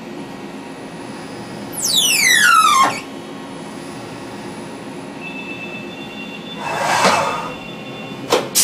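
CNC machining center cutting a brass part: the spindle's whine falls steeply in pitch about two seconds in, then a small drill bit feeds into the brass with a steady high whine and a short rush of cutting noise near the seven-second mark. A sharp click comes just before the end.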